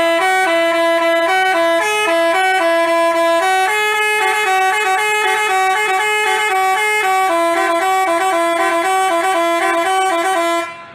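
Basuri-type telolet bus horn playing a tune: a quick run of notes stepping up and down in pitch, stopping shortly before the end.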